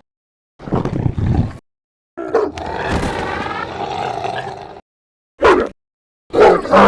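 Anooba creature sound effects built from wolf and dog recordings, played as separate clips: a short growl, a long wavering snarl-like call, then short barks near the end.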